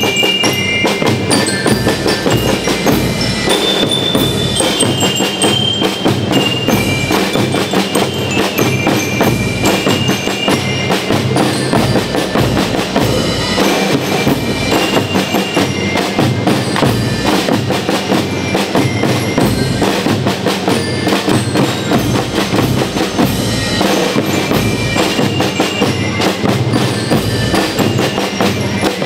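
School marching rhythm band of snare drums, bass drums and bell lyres playing: dense, steady drumming with a bright, ringing metallic melody on the lyres, clearest in the first part.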